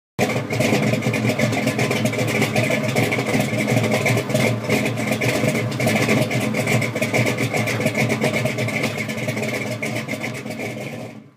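A car engine running steadily and loudly, starting abruptly and fading out near the end.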